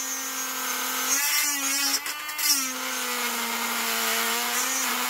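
Cordless handheld rotary tool running at speed as its bit cuts into the joint between a statue's cape and body. Its pitch shifts between about one and three seconds in as the bit bears on the work.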